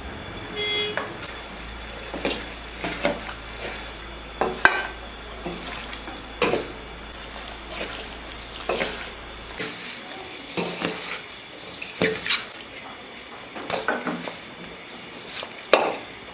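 A utensil clinking and knocking against a pot in irregular strokes every second or so as hot water is stirred and worked into fried rice flour to make a dough.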